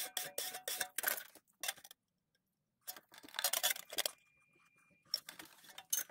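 Rapid back-and-forth strokes of a hand file or rasp along the edge of a thin aluminium sheet clamped between angle irons, trimming the edge down to its marked line. The strokes come in short runs with brief pauses between them.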